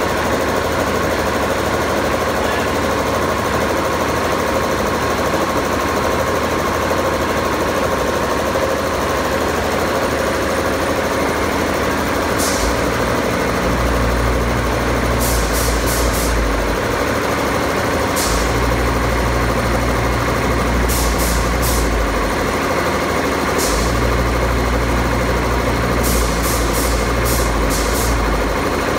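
Kirloskar KCX3 reciprocating ammonia compressor running: a steady, loud mechanical din. From about halfway through, a deeper low rumble swells in three times for a few seconds each, along with little clusters of faint sharp ticks.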